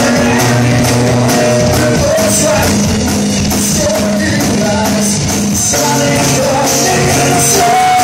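Live rock band playing: acoustic guitar strummed over a drum kit with cymbals, and a singer's voice.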